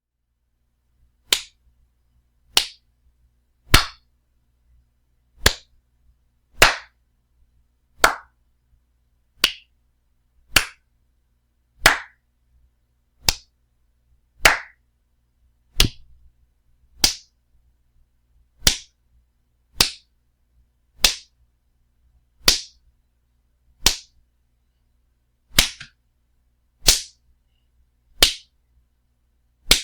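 A series of loud wet slaps, one sharp smack about every second and a bit, each cut off quickly, about twenty in all.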